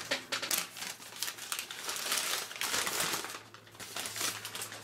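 Newspaper wrapping being crumpled and rustled as a packed item is pulled out and unwrapped, an irregular papery crackling that eases briefly about three and a half seconds in.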